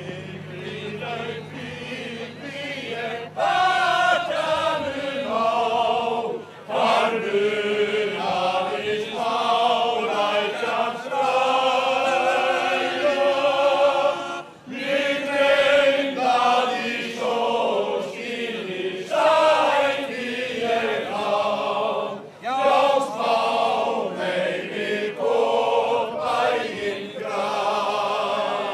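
A group of men singing together in long held notes, phrase after phrase, with a brief pause between phrases about every eight seconds.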